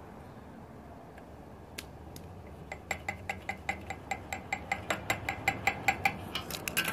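A spoon knocking against the side of a ceramic bowl while stirring thick homemade slime: a regular clinking, about four knocks a second, each with a short ring. It starts about three seconds in and speeds up near the end.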